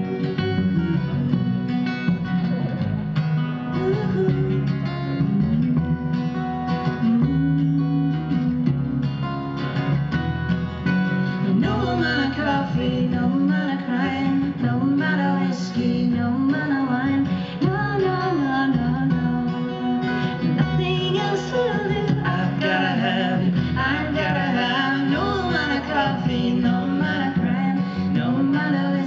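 Live acoustic music: two strummed acoustic guitars over an upright double bass, with singing coming in about twelve seconds in.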